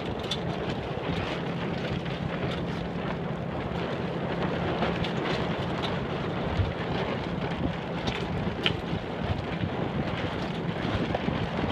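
Wind buffeting the microphone aboard a sailboat under way: a steady rushing noise, with a steady low hum underneath and a few scattered clicks.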